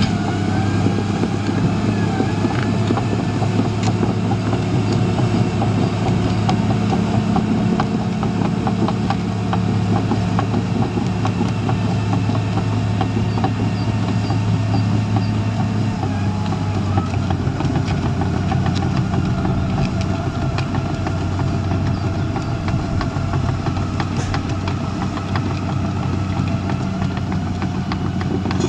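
Caterpillar D5N LGP crawler dozer's diesel engine running steadily under load while it works clay soil, with a thin wavering whine above it and light clattering throughout. The engine note drops slightly a little past halfway.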